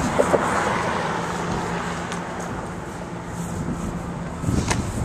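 A motor vehicle's engine running nearby: a steady low drone over outdoor noise, with a couple of sharp knocks near the end.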